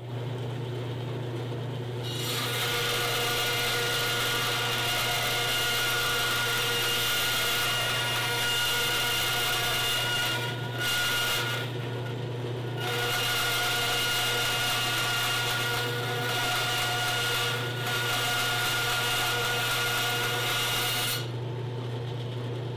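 Bandsaw running and cutting a thin strip of laminated fiberglass tape to trim its edges. The motor hums steadily while the cutting noise starts about two seconds in, breaks off twice briefly near the middle, and stops near the end with the motor still running.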